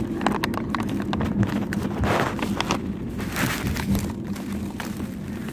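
Rustling, scraping and clicking of a phone being handled and rubbed against fabric, with a few louder rustles about two and three and a half seconds in, over a steady low hum.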